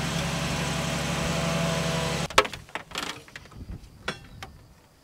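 Van engine idling steadily, then stopping abruptly a little over two seconds in. A few light clicks and knocks follow.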